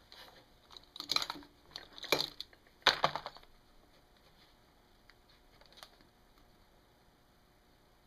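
Light metallic clicks and rattles of a small wrench working the valve adjuster on a Honda ATC110 cylinder head, in three short clusters about a second apart.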